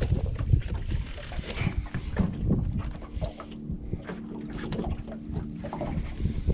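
Wind rumbling on the microphone aboard a small fishing boat, with many irregular small knocks. A faint steady hum runs for a few seconds in the middle.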